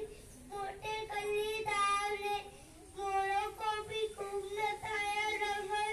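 A young child singing solo, holding long steady notes in short phrases with brief pauses between them.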